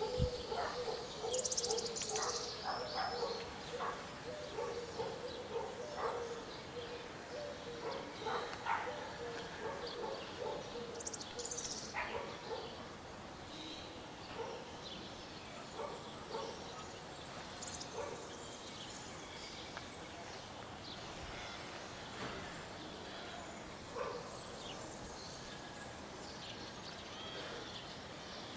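Quiet outdoor background with birds chirping now and then and a few short, sharp calls scattered through the first half, settling into a steady low hum of environmental noise.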